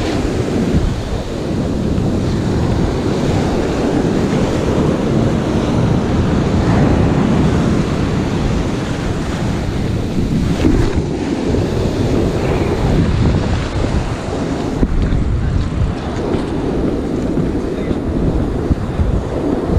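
Ocean surf breaking and washing up the beach, with wind buffeting the microphone.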